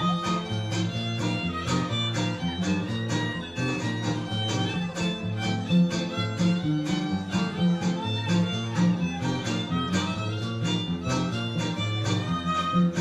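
Huasteco string trio (violin with strummed jarana and huapanguera guitars) playing a lively polka. A fiddle melody rides over steady rhythmic strumming and an alternating bass line.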